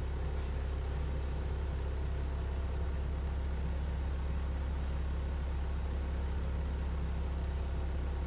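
Inside a Kanbara Railway Moha 31 electric railcar: a steady low hum with a few constant tones, even in level and without rail-joint clicks.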